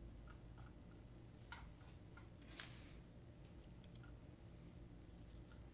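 Near silence: room tone with a few faint short clicks, the loudest about two and a half seconds in.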